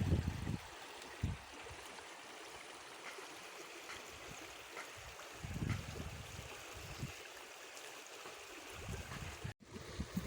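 River water flowing, a steady rushing sound, with a few short low rumbles on the microphone.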